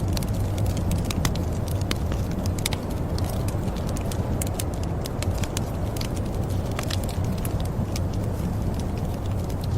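Wood fire crackling, with frequent irregular sharp pops over a steady low rumble.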